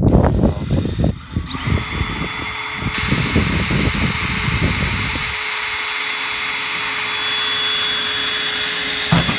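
Cordless drill boring a hole through the sheet metal of a car's rear hatch: a steady whine that starts about a second and a half in, growing harsher and louder as the bit bites, after some low knocking at the start.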